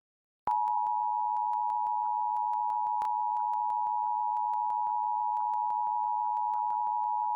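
Emergency Alert System attention signal: two steady tones sounded together, about 853 and 960 Hz, starting abruptly about half a second in and holding unchanged.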